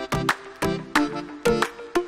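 Background music with a steady beat of short, struck notes that ring briefly, several to the second.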